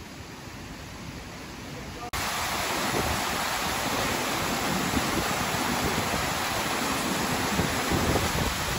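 Small waterfall pouring into a rock pool: a steady, loud rush of falling water that comes in suddenly about two seconds in, after a quieter stream murmur.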